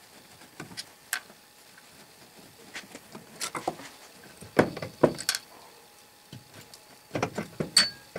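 Scattered metallic clicks, clinks and knocks of an antique Essex hot air engine being taken apart by hand: a screwdriver working at the crank, then the flywheel and crank assembly being worked loose to draw out the piston. The clicks come in small clusters, loudest about halfway through.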